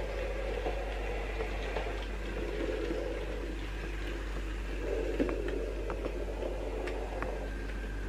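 OO gauge model train running along the layout: a steady motor hum with a few scattered light clicks of wheels over the rail joints.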